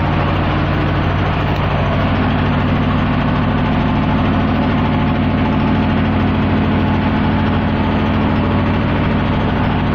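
Steady drone of a diesel engine running at a constant speed, an even low hum that does not change.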